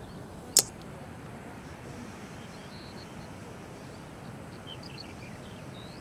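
Outdoor nature ambience: faint, short bird chirps scattered over a steady background hiss, with one sharp click about half a second in.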